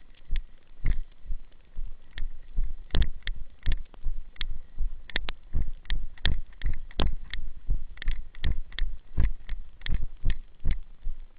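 Footsteps and gear knocking against a carried camera while walking, a sharp thump roughly every half second, unevenly spaced.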